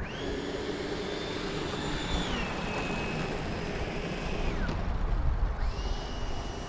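E-flite F-15 Eagle RC jet's electric ducted fans whining in flight over a steady rush of air. The whine drops in pitch about two seconds in and fades out near the middle, then comes back about a second later.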